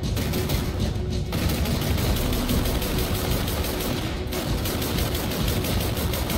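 Turret autocannon of a BTR-82A armoured personnel carrier firing continuously, rapid evenly spaced shots with casings ejecting, over a music track.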